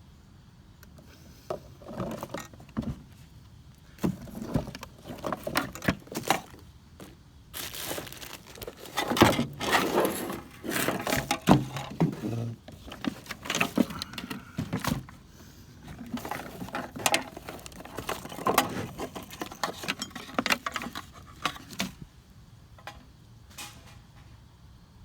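Rummaging through trash and scrap by hand: a busy, irregular run of clattering knocks, scrapes and jangles that starts a second or two in, is busiest in the middle and dies away near the end.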